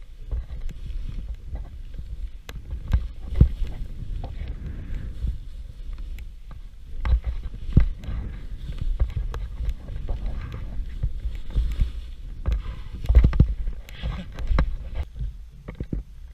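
Skis hissing and scraping through powder snow on a downhill run, over a steady low rumble of wind on the microphone, with irregular knocks and thumps from turns and bumps, a few of them loud.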